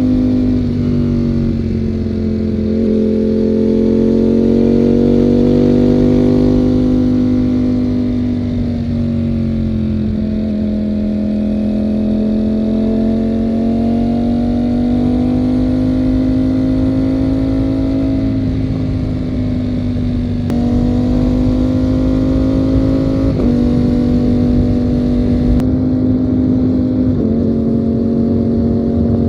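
Ducati Panigale V4 V4 engine running under way at moderate revs, its pitch easing down and climbing back gradually, then stepping abruptly up and down several times in the last third as gears change.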